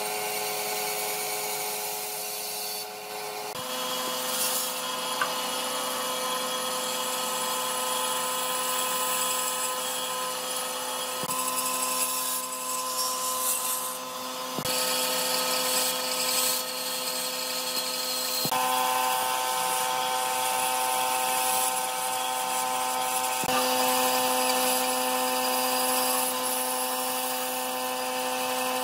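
Band saw running and cutting through a thick softwood block, a steady motor hum with the blade sawing through the wood. The tone shifts abruptly several times.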